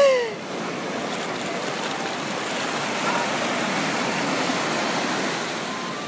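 Shallow surf washing in over a sandy beach, a steady rush of foaming water that swells a little midway. A short falling vocal cry right at the start.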